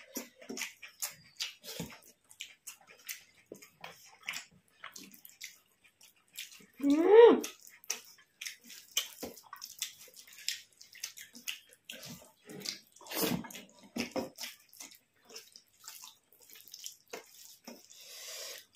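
Close wet eating sounds: fingers squishing and mixing rice with curry on a plate, chewing and lip smacks, as a stream of short clicks and smacks. A brief voiced sound about seven seconds in.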